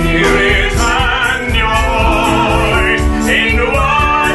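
A woman and a man singing an operatic-style duet with wide vibrato over an instrumental accompaniment with a steady low beat.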